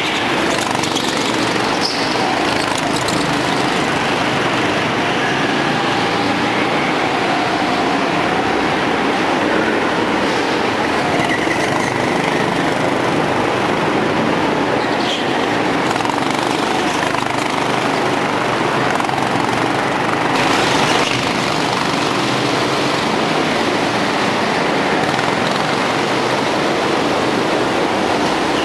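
Several go-kart engines running on an indoor track, a steady dense din with the pitch of passing karts sliding up and down now and then.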